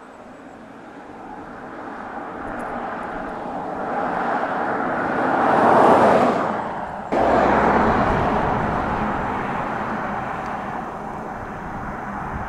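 Mercedes-Benz C250 Estate (W205) driving past: engine and tyre-on-road noise grows over about six seconds to a peak as it passes. About seven seconds in the sound jumps up suddenly, then the car is heard driving on, slowly fading.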